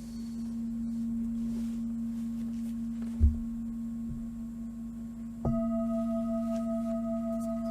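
Meditation tones: a steady low ringing tone, joined about five and a half seconds in by a higher tone that starts suddenly and rings on. A short dull thump about three seconds in.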